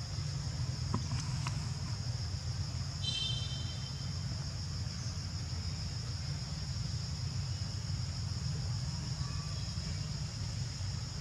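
Steady high-pitched insect drone over a low rumble, with a brief high chirp about three seconds in.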